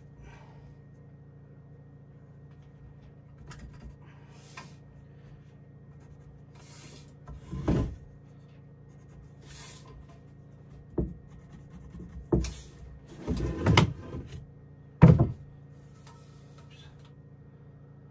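A handful of scattered wooden knocks and thumps, as from boards and tools being handled, the loudest near the end, over a faint steady low hum.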